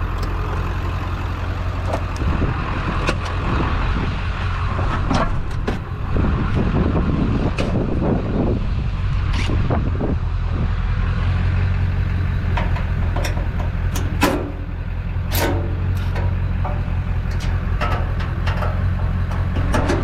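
A truck engine idling steadily, with scattered clicks and knocks over it.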